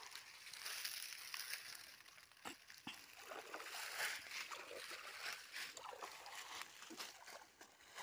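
Cast net landing on a pond, its weighted rim spattering across the surface, followed by soft water sloshing and small splashes around a man wading in it.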